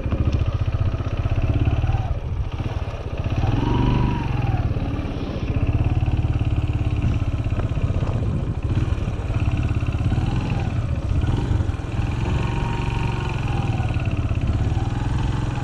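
A small engine running steadily at a fast, even beat, with cows mooing over it several times.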